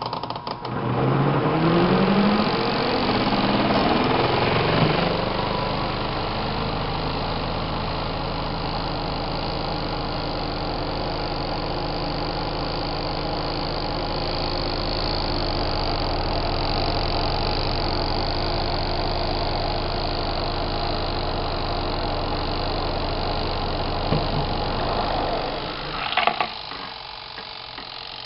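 Motor of a small twin-tub washing machine starting up, rising in pitch over the first few seconds as it comes up to speed, then running steadily with a hum before stopping with a click near the end.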